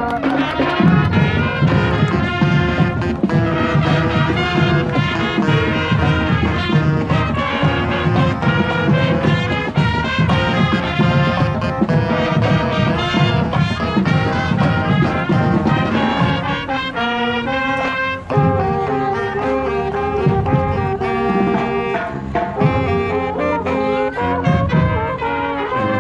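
A high school marching band plays, with brass (trumpets and trombones) over a heavy drum beat. About two-thirds of the way in the drums drop back and the brass carries on in held chords.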